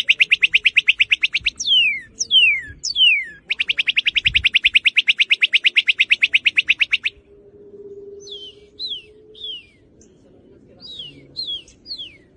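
Northern cardinal singing: a fast trill of short repeated notes, three loud down-slurred whistles, a second fast trill, then softer down-slurred whistles in two groups of three.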